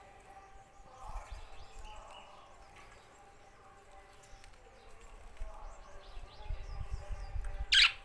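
Budgerigar chirping and warbling softly, with one sharp, loud call near the end. A low rumbling noise comes and goes underneath.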